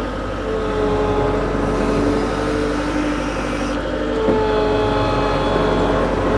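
Kato compact track loader's diesel engine running steadily as the machine drives forward over gravel with its bucket down, a steady whine riding over the engine note. A single small knock comes about four seconds in.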